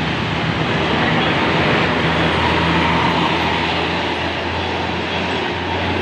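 Diesel engine of a large tour bus pulling uphill past the camera, a steady low drone mixed with road and traffic noise.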